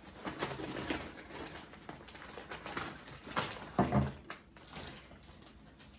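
A snack-chip bag crinkling as chips are shaken out onto a plate, in irregular small clicks and rustles, with one louder rustle just before the middle.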